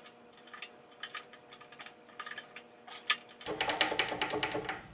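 Small metallic clicks and scrapes of pliers bending a cotter pin over at an outboard motor's propeller nut. About three and a half seconds in, the clicks turn into a denser clattering rattle that lasts to the end.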